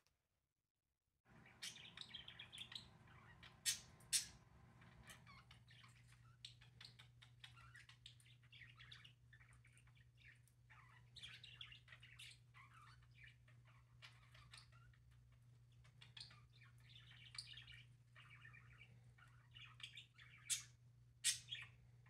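Several budgerigars chirping and chattering quietly, starting after about a second of silence, over a steady low hum. A few sharp clicks stand out, a pair a few seconds in and another pair near the end.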